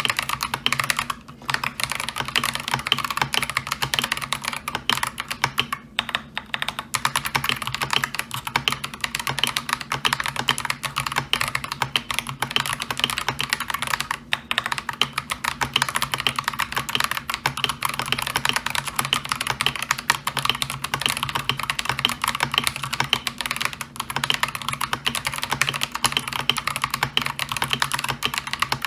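Continuous fast typing on an Akko 3098B mechanical keyboard with stock, unlubed Akko Lavender Purple tactile switches and ASA-profile keycaps, a dense run of key clicks, with brief pauses about a second in and about six seconds in.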